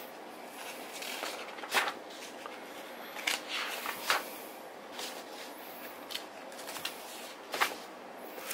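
Paper pages of a bound report being turned and handled by hand: a few short, sharp rustles and swishes.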